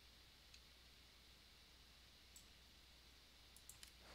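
Near silence: a faint low room hum with a few faint, scattered computer clicks, one about half a second in and a cluster near the end.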